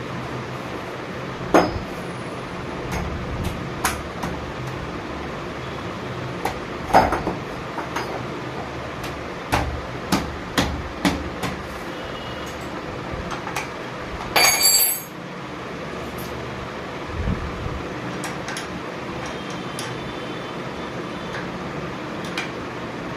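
Scattered metallic clicks and knocks as a bicycle saddle's clamp and seat post are handled and fitted together, with a short rattle about two-thirds of the way through, over a steady low hum.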